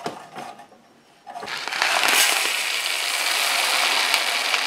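Dry peas poured from a paper bag into the sheet-metal hopper of a two-row hand seeder: a steady rushing hiss that starts about a second and a half in, after a few light clicks.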